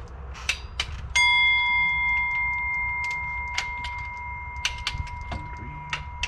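Metal hand tools clicking and knocking while the water pump bolts of a GMC Sierra's 4.8 V8 are torqued down. About a second in, a sharp metallic strike rings on as a clear tone that slowly fades over several seconds.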